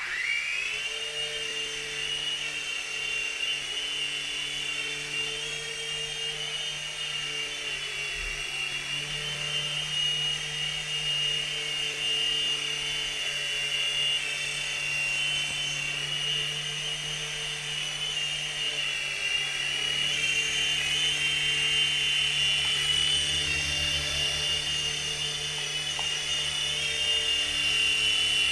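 DFD Firewolf F103 micro RC helicopter's small electric motors whining at a steady high pitch in flight, after a sharp rise in pitch as they spool up in the first second.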